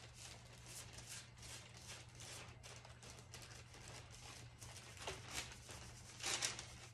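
Hand rubbing a clear plastic bag over glued decoupage paper to smooth it onto a wooden board: soft, repeated rustling and crinkling strokes of plastic, loudest a little after six seconds in, over a low steady hum.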